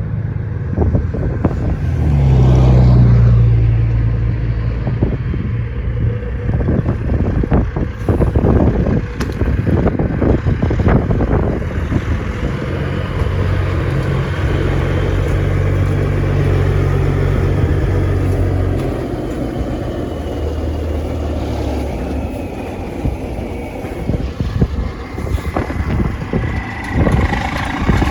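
Logging truck's diesel engine running as it pulls out, loudest about two to four seconds in and swelling again midway, with a steady clatter of rattles over it.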